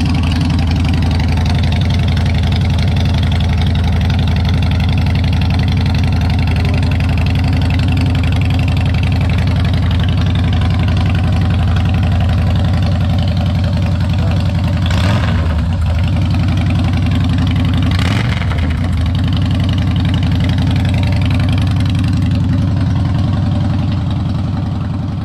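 2010 Harley-Davidson Fat Boy's V-twin idling through chrome Vance & Hines Big Shot Staggered exhaust pipes. The throttle is blipped twice, a few seconds apart, past the middle, and the engine sound fades out near the end.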